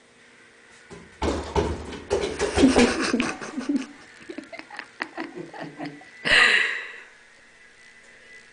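A person laughing in loud pulsed bursts from about a second in, mixed with thumps as a cat jumps and paws at closet doors. One short, higher-pitched burst of laughter comes about six seconds in.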